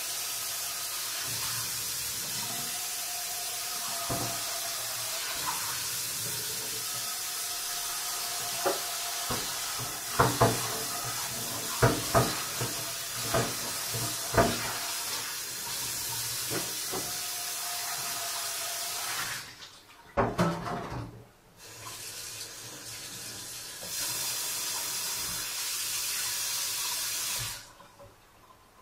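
Kitchen tap running in a steady rush, with dishes and utensils clinking under the water. It is turned off about two-thirds through, a few knocks follow, then the tap runs again for a few seconds and stops near the end.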